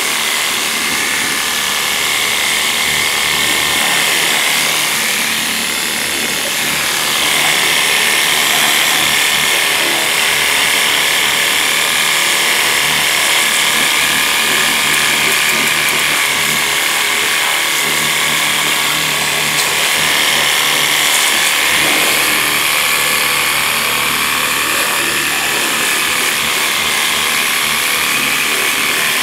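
Worx Hydroshot cordless power cleaner running steadily, its pump motor buzzing under the hiss of the water jet as it rinses degreaser off an engine bay.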